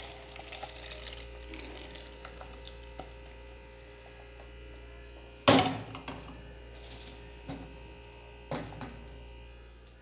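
Hot sugar caramel poured into an aluminium pudding mould, crackling and sizzling faintly as it bubbles, over a steady hum. Two sharp knocks with a short ring stand out, one about halfway through and one near the end.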